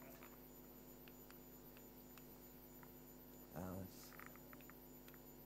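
Steady low electrical mains hum from the church sound system while the preacher's microphone has cut out, with faint ticks. A short, faint voice-like sound comes about three and a half seconds in.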